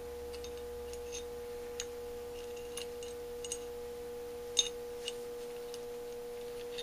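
Light clicks and taps of small metal choke parts being worked into a Holley 4000 teapot choke housing by hand, about half a dozen, the loudest about four and a half seconds in, over a steady humming tone.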